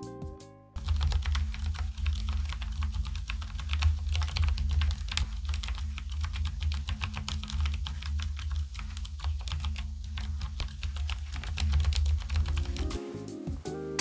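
Fast continuous typing on Keychron K Pro Brown tactile switches in a Keychron K4 Pro mechanical keyboard, several keys typed on bare switches with their keycaps removed. The keystrokes start about a second in and stop shortly before the end.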